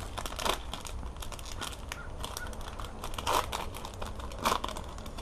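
Shiny foil wrapper of a Topps Chrome baseball card pack crinkling and tearing as it is worked open by hand: a run of irregular crackles, with a few louder ones in the second half.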